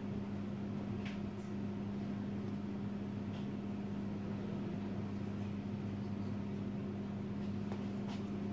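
Steady low electrical hum of room equipment over faint fan-like noise, with a few faint ticks about a second in, midway and near the end.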